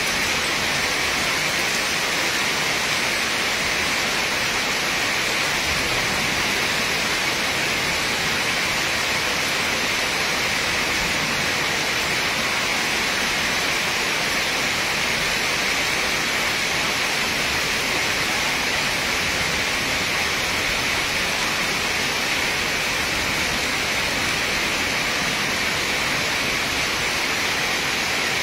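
Steady heavy rain falling: an even, unbroken hiss with no separate drops or thunder standing out.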